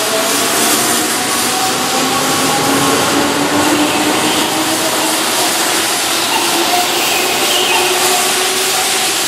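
Keihan electric commuter train pulling out along the platform, picking up speed. Its traction motors whine in several tones that slowly rise in pitch, over steady wheel and running noise.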